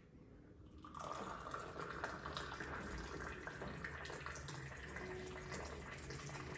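Tea poured in a long stream from a metal teapot held high above a small glass, splashing steadily into it; the pour begins about a second in.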